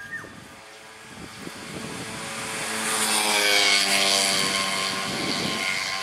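An engine passing by: a droning hum that swells over about three seconds, its pitch falling as it goes past, then slowly fading.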